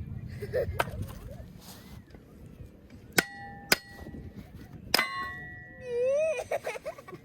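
Three sharp metallic dings, each ringing on briefly with clear tones, followed near the end by a short wobbling tone that slides up and down.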